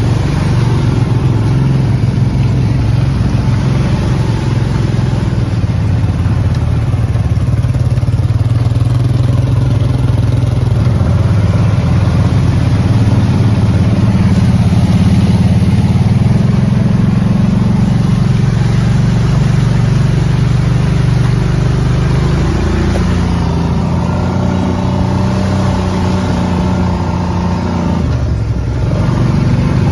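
A Kawasaki Brute Force ATV's engine running as the quad rides along a rough trail, its note rising and falling with the throttle and dropping briefly near the end.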